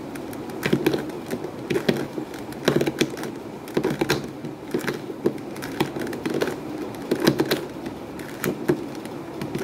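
A plastic 3x3 Rubik's cube's layers being twisted again and again, giving an uneven run of clicks and clacks a few times a second. The turns are a repeated sequence of face moves that bring the scrambled cube back to solved.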